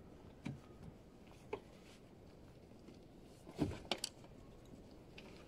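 Soft handling sounds at a car: a few scattered clicks and knocks as the rear side door is opened and a backpack is pulled from the back seat, the loudest cluster about three and a half to four seconds in.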